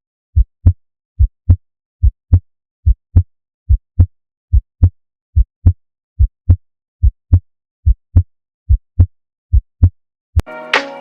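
Human heart sounds heard through a stethoscope over the base of the heart: a steady lub-dub, the first and second heart sounds, about 72 beats a minute. The second sound of each pair is slightly louder. Music comes back in near the end.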